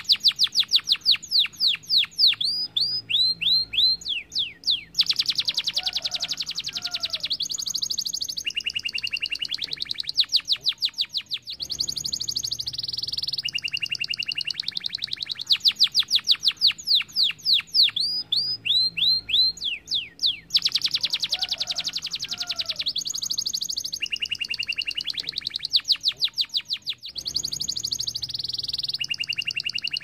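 Domestic canary singing a fast, continuous song of rapid trills and runs of repeated descending sweeps, with short pauses between phrases. The same sequence of phrases comes round again about every fifteen seconds.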